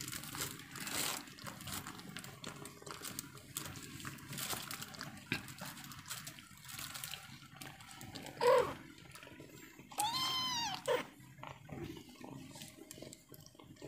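Mother cat licking and grooming her kitten, with soft wet licking and rustling throughout. A cat gives a short mew about eight seconds in, then a longer meow that rises and falls, followed by a brief mew.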